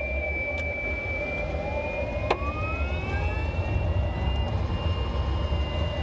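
Nissan Leaf's EM57 electric motor and reduction gearbox whining while driving, several thin tones gliding up and then down in pitch with speed, over a low road rumble. A sharp knock sounds a little over two seconds in, of the kind the owner suspects comes from the motor mounts.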